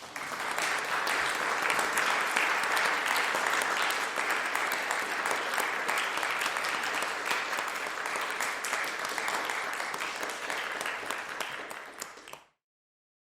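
Crowd applause: many people clapping densely and steadily, easing off slightly near the end and then stopping abruptly about a second before the end.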